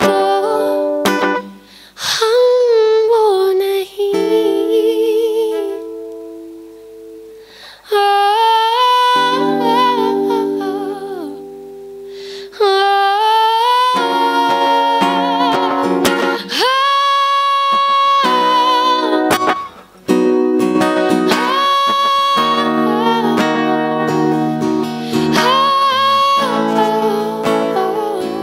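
A woman singing to her own acoustic guitar accompaniment, in phrases with long held, wavering notes and brief pauses between them.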